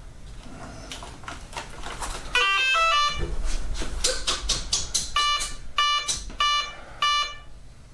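Model plane's electronic speed controller sounding its power-up tones: a quick stepped run of electronic tones, then a string of identical beeps about every 0.6 seconds, the usual sign that the battery is connected and the speed controller is initialising and arming. Some light handling clicks come before the tones.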